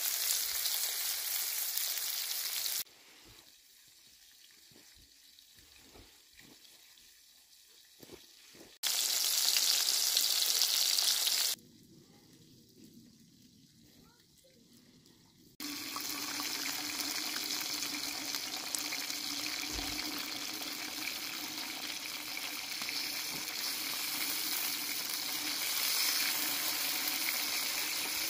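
Food sizzling, in separate shots: sizzling at first, then a near-quiet stretch of several seconds with faint clicks, a louder stretch of sizzling, another quiet gap, and steady sizzling again from a little past halfway with a low steady tone under it.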